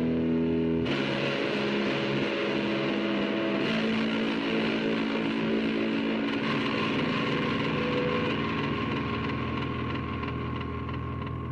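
Eumig Mark 501 8mm film projector running: a steady motor hum with a dense mechanical rattle. Its pitch shifts abruptly about a second in and again nearly four seconds in.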